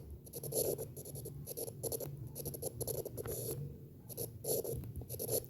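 A pen scratching across a writing surface in many short, irregular strokes as someone writes, with a brief let-up about four seconds in.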